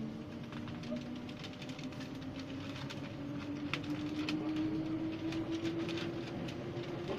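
RER B commuter train heard from inside the carriage, its electric traction motors whining and rising steadily in pitch as the train picks up speed, with scattered clicks and rattles from the wheels on the track.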